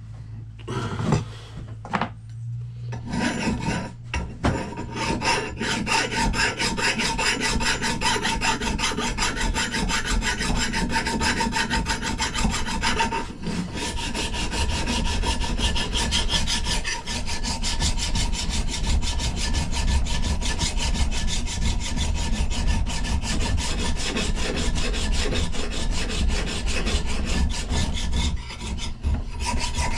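A metal file rasping over an old Plumb axe head held in a vise, reshaping the edge with steady, continuous strokes. It starts about three seconds in after a few light knocks and pauses briefly partway through.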